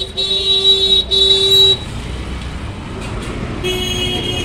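Vehicle horn honking in street traffic: two longer blasts that stop about two seconds in, then another horn near the end, over steady street noise.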